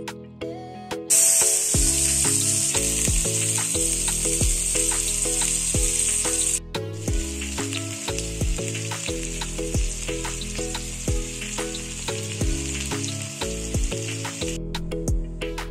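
Whole kou (climbing perch) fish frying in hot oil in a pan, the oil sizzling steadily. It starts about a second in, breaks off for a moment near the middle, resumes a little quieter and stops shortly before the end, with background music throughout.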